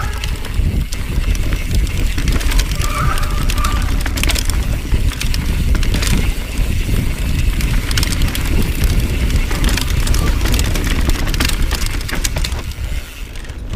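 Mountain bike descending a dirt singletrack at speed: steady wind rumble on the on-bike camera's microphone, with tyres on dirt and the frame and components clattering and rattling over roots and bumps. The noise eases briefly near the end.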